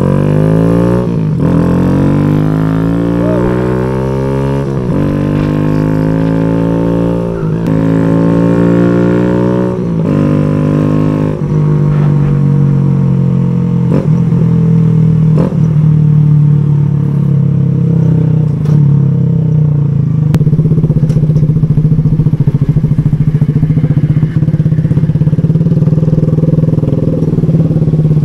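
Kawasaki Z125 Pro's single-cylinder engine through its new aftermarket exhaust, pulling through the gears: the pitch climbs and drops back at each of about five upshifts in the first twelve seconds, then holds steady while cruising.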